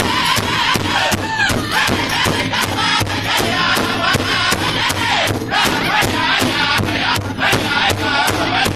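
Powwow drum group performing an intertribal song: a circle of men strike one large hide-covered powwow drum in unison in a fast, steady beat while singing together in high voices.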